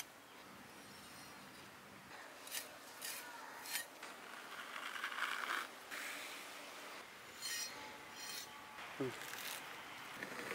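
Faint rubbing and scraping as stingray skin is peeled by hand off the flesh, with a few soft taps along the way.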